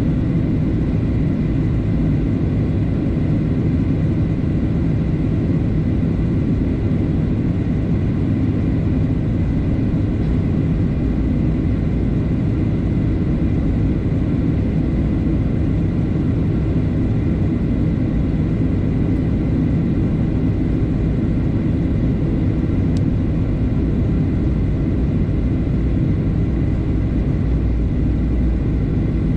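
Steady cabin noise of a jet airliner descending on approach: a constant rush of engine and airflow noise, heaviest in the low range, with a faint high steady whine. The deep rumble grows a little stronger near the end.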